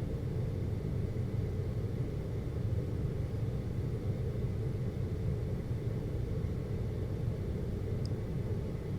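Air conditioner running with a steady low hum and rumble, with a faint high tone above it.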